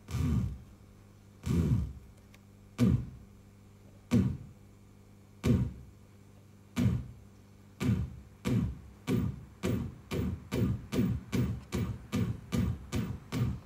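Gutted cassette player driven by a voltage-controlled DC motor, sounding a series of short thuds that each fall in pitch. They come about every 1.3 s at first, then steadily faster, reaching about three a second near the end.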